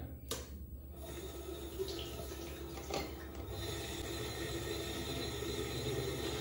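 Water running from a bathroom tap into a basin, starting about a second in and holding steady, with a couple of light clicks.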